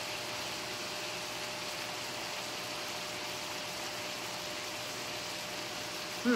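Ground lamb and onion simmering in a stainless steel skillet, giving a steady, even sizzle.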